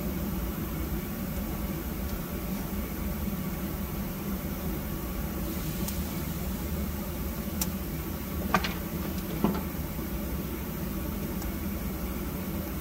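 Steady low rumble and hum, with a few short clicks or crackles, the two loudest a little past halfway.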